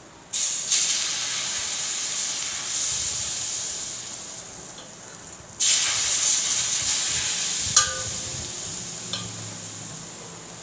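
Two ladlefuls of hot oil poured onto heaped ground spices and crushed garlic, each setting off a sudden sizzle that slowly dies down, one at the start and one about halfway through. The warm oil is frying the pickle masala. A single metal clink of a spoon on the steel plate comes shortly after the second pour.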